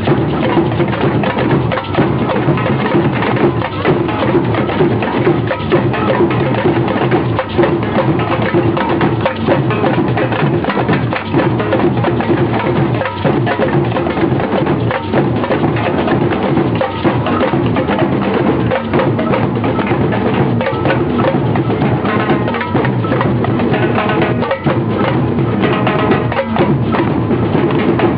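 Marching band drums and percussion playing loudly and continuously, with many sharp strikes.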